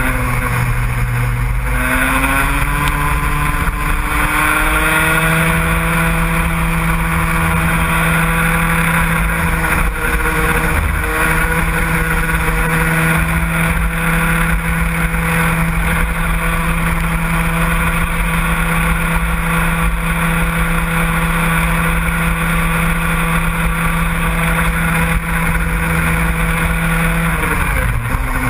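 Engine of a motorsport vehicle climbing in revs over the first couple of seconds, then held at steady high revs for a long stretch, with the revs dropping shortly before the end.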